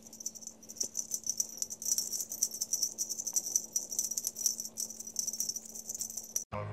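A continuous high-pitched jingling rattle made of many rapid fine ticks, with a faint steady hum under it; strummed guitar music cuts in just before the end.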